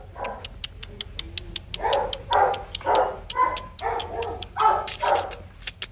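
Rottweiler puppy about three weeks old yelping, a run of short calls that mostly comes from about two seconds in. A fast, even clicking runs behind it.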